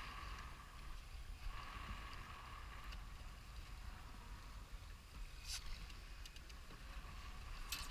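Wind and choppy water around a small open fishing boat, a steady low rumble and wash, with two faint clicks, one about halfway through and one near the end.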